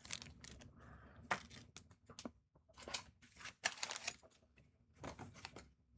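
Small parts being handled on a workbench: scattered sharp clicks and light rustling, with a few louder ticks.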